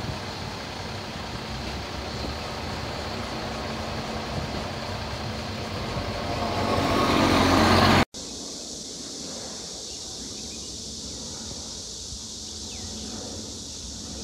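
A vehicle's engine noise grows steadily louder to a loud peak about eight seconds in, then cuts off abruptly. A quieter, steady outdoor background with a high hiss follows.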